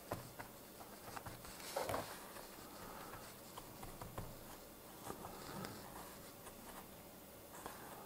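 Faint scattered taps and rustles of metal tweezers and fingertips pressing a grass-fibre mat piece down onto a model diorama base.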